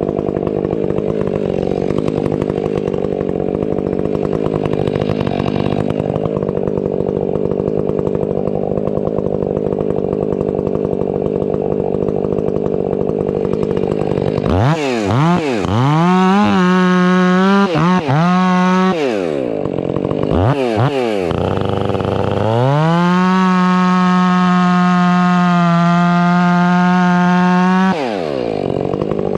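Stihl 500i two-stroke chainsaw idling, then blipped up several times about halfway through, then held at high revs for about six seconds before dropping back to idle near the end.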